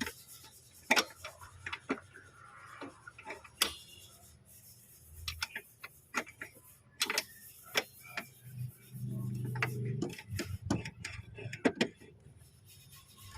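Irregular sharp metallic clicks and taps of hand tools and bolts as the Allen bolts holding a diesel fuel filter are removed, with a short low hum about nine seconds in.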